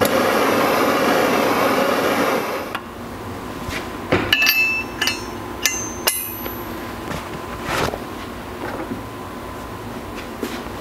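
Handheld propane torch flame hissing steadily for about the first three seconds, heating the new distributor drive gear for a shrink fit, then cut off. A couple of seconds later, several light metallic clinks with a brief ring as the hot gear is set down over the crankshaft nose.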